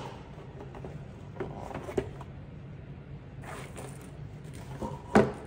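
Cardboard jigsaw puzzle box being opened and handled: light rustles and soft knocks of cardboard, then one sharp knock near the end as the box or its lid is set down on the counter.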